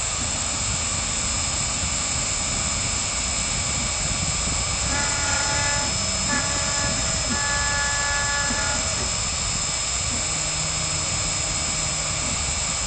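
CNC router engraving wood: the spindle runs with a steady high whine and cutting noise. Steady motor tones change pitch in steps from about five seconds in as the axes move.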